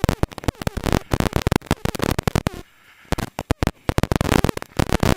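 Gravel and stones clattering hard against the underside and wheel arches of a Holden VP Commodore rally car at speed on a loose stage, heard from inside the cabin. Dense irregular cracks and rattles that ease briefly about three seconds in, then thicken again near the end.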